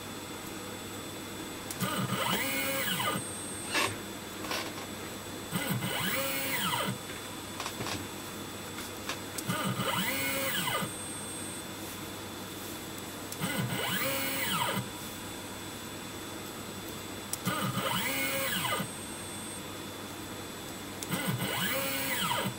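JLW T1 mini CNC milling machine's X axis traversing about 5 mm and back on its ball screw: six short bursts of drive-motor whine about four seconds apart, each rising then falling in pitch as the axis speeds up and slows to a stop. A steady hum runs underneath.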